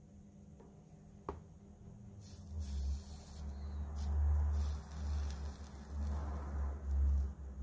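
Soldering iron melting solder onto a wire splice: a hissing sizzle of flux starting about two and a half seconds in, over a loud low rumble that swells and fades several times.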